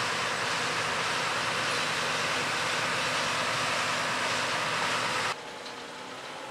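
Farm machinery running steadily under load, a dense mechanical din; a little over five seconds in it drops abruptly to a quieter steady machine hum.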